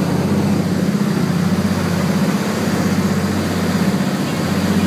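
The Beech 18's twin radial engines droning steadily, with a fast throb, heard from inside the cabin in flight.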